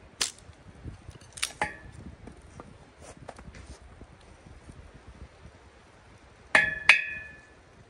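Split firewood being handled and set into a metal fire ring: a few light wooden clicks, then two loud ringing clacks of wood striking wood or the ring, close together near the end.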